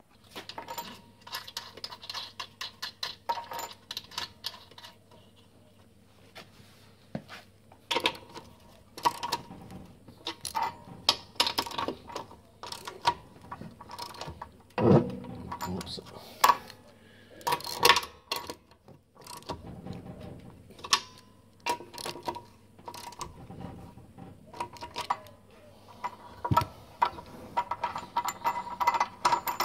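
Small metal mower parts handled by hand under a lawn mower deck: irregular clicks, clinks and knocks as the blade boss and spacers go onto the crankshaft, with a faint steady low hum behind.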